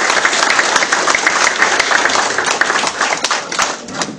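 A group of seated students applauding, dense clapping that thins out and fades near the end.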